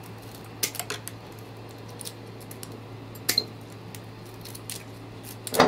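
A few sharp snips and clicks of a hand tool cutting black plastic 3D-printer filament over a glass jar. The loudest come a little past three seconds in and again near the end.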